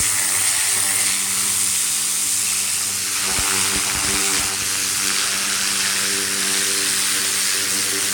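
Greenworks 1700 PSI pressure washer running steadily: its motor and pump hum under the continuous hiss of the spinning turbo nozzle's jet striking a fabric van seat. A few low thumps come between about three and four and a half seconds in.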